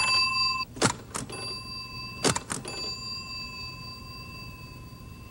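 Hollerith punch-card tabulator working: the press and counters make sharp clicks, and its small bell rings three times, the last ring fading slowly. The bell signals that a card has been counted.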